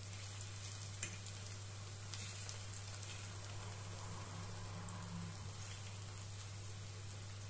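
Ripe plantain slices sizzling steadily as they fry in a frying pan, with a few light clicks of a fork turning them over. A steady low hum runs underneath.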